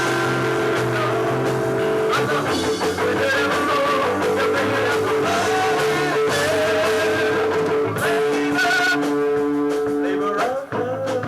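A live new wave rock band playing a song: guitar over bass and percussion, with singing. The sound dips briefly near the end, then the playing picks up again.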